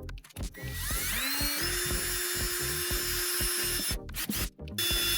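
Power drill spinning up about a second in and running steadily, stopping just before four seconds and starting again near the end, as it drills holes to mount a solar battery maintainer.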